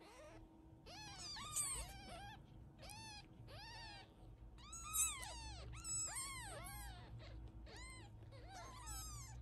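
Newborn British Shorthair kittens mewing repeatedly: about a dozen short, thin, high cries, each rising then falling in pitch, one or two a second.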